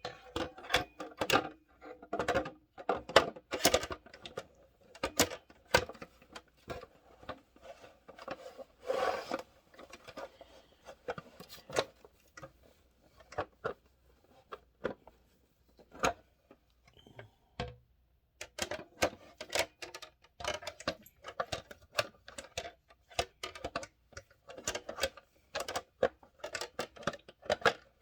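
Irregular clicks, taps and knocks of hard plastic parts of a SodaStream Fizzi soda maker being handled and fitted together, with a brief rustle about nine seconds in.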